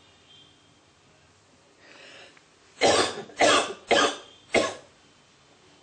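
A man coughing four times in quick succession, after a short breath in.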